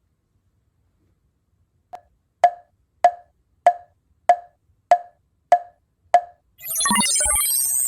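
Edited-in sound effects: eight short, hollow knocks tapped out evenly at about one and a half a second, then, near the end, a loud, dense sound effect of many gliding, warbling tones.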